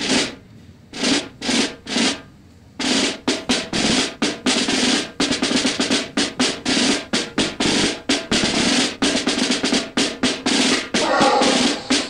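Background music of loud drumming: a few separate hits about half a second apart, then from about three seconds in a fast, dense run of drum strokes, several a second.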